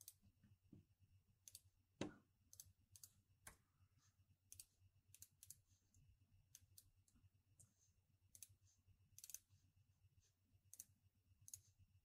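Near silence broken by faint, scattered computer mouse clicks and key taps, one a little louder about two seconds in.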